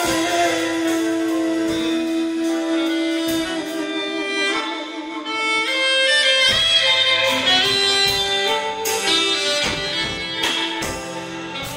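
Live band playing an instrumental passage between sung lines: an alto saxophone carries the melody in long held notes over the band, with a few drum and cymbal hits.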